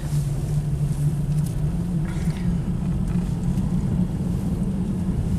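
Car engine and road noise heard from inside the cabin, a steady low drone whose pitch rises a little about two seconds in.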